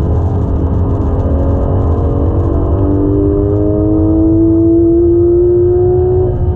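Porsche 991.1 GT3 RS's naturally aspirated 4.0-litre flat-six pulling hard under full acceleration, its note climbing steadily in pitch, heard inside the cabin over heavy tyre and road rumble. Right at the end the pitch drops suddenly with a PDK upshift.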